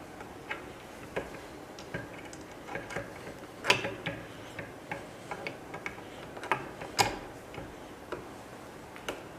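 Irregular clicks and knocks of 3D-printer parts being handled as the X-axis rail is worked onto the Z-axis pillars, with two louder knocks at about four and seven seconds in.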